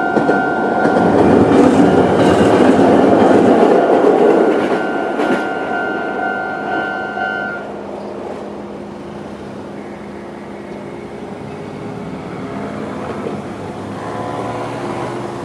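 A Jomo Electric Railway 800-series train rumbles over a level crossing while the crossing's old-type electronic warning bell rings steadily. The train noise fades after about five seconds, and the bell stops about seven and a half seconds in.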